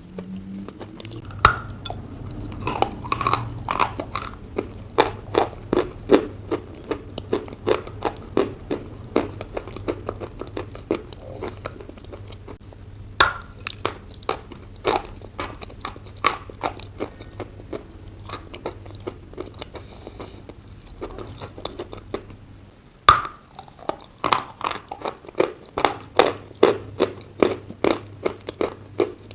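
Close-up chewing and crunching of dry chalk mixed with clay paste, a fast run of sharp crunches about two to four a second, with a short pause and then a single loud bite near the end.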